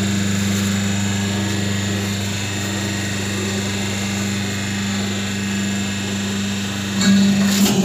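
Hydraulic double-die paper plate making machine humming steadily while running, with a brief louder clatter about seven seconds in.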